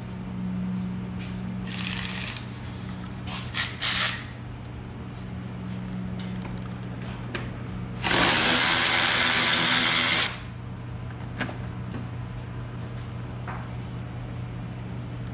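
Cordless power drill/driver whirring in two short bursts about two and four seconds in, then running steadily for about two seconds near the middle, as screws are run out of an ATV's plastic body panels.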